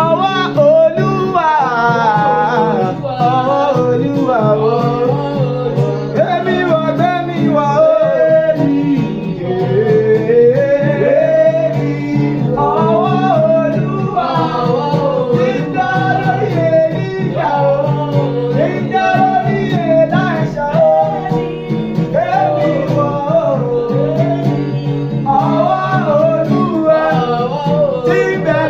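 Gospel music: a voice singing a melody over a steady instrumental accompaniment.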